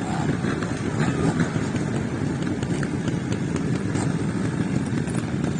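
Trials motorcycle engine running at low, uneven revs as the bike climbs a steep dirt slope, with small blips of throttle.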